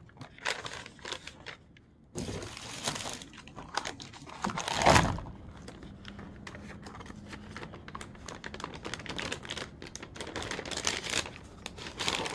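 Plastic MRE packaging being handled: a flameless ration heater bag and a meal pouch crinkling and rustling in irregular bursts, louder about two seconds in and loudest around five seconds in.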